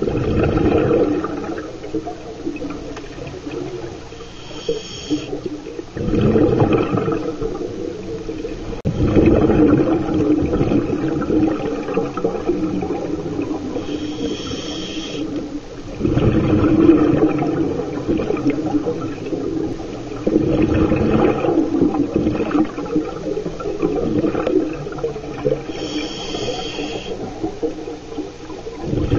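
Scuba diver breathing through a regulator, heard underwater: long bubbling rushes of exhaled air every few seconds, with short hissing inhalations between them.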